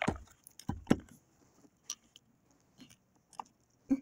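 Handling noise: a knock at the start and another about a second in, then scattered light clicks and ticks as the camera phone and plastic toy figures are moved about.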